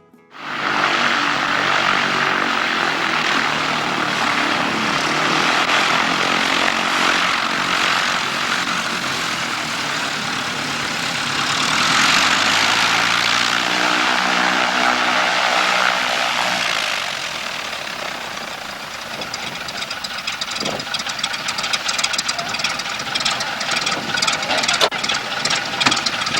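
An engine running steadily under a loud rushing noise; from about eighteen seconds in, a fast, irregular rattling joins it.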